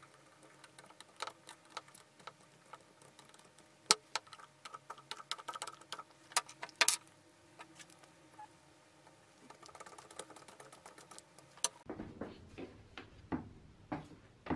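Small screwdriver turning screws into a plastic drill housing: a run of light metallic clicks and ticks, with sharper clicks about four and seven seconds in. Near the end, a few duller knocks.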